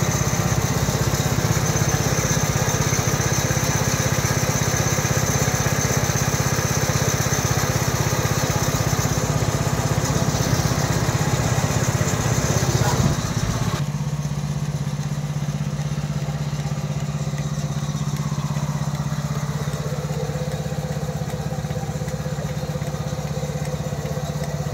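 Small petrol engine of a milking machine running steadily, driving its vacuum pump. About halfway through, the sound drops abruptly to a quieter, steadier hum.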